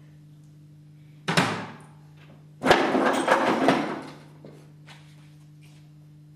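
Animal bones clattering against a small coffin-shaped box: a short clatter, then a longer rattling clatter lasting over a second.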